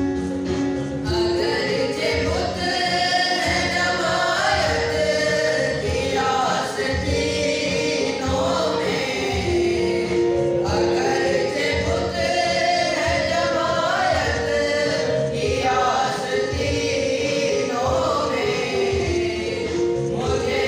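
Electronic keyboard playing a melody over a steady beat, amplified through a PA mixer. About a second in, a group of young male voices joins, singing together into a microphone.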